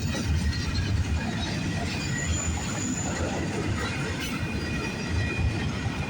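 Freight cars of a manifest train rolling past on the rails, a steady low rumble of wheels on track with thin high squeals from the wheels.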